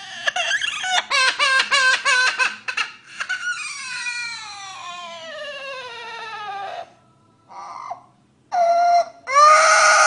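Amazon parrot mimicking a crying baby: a run of quick sobs, then one long wail falling in pitch, then after a short pause more cries, the loudest near the end.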